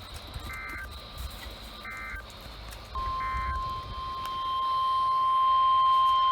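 A Midland HH54 weather radio's speaker sounding the start of a NOAA Weather Radio required weekly test. Three short, harsh EAS SAME data bursts come about a second apart. About three seconds in, the steady 1050 Hz warning alarm tone begins and grows louder.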